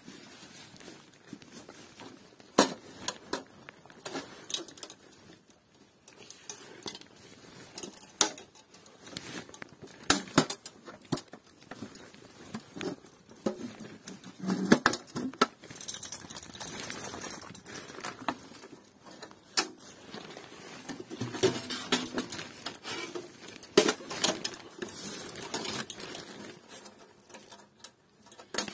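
Folding sheet-metal camping stove being unfolded and handled: scattered metallic clanks and knocks as its hinged panels are swung and set, the loudest knock about halfway through.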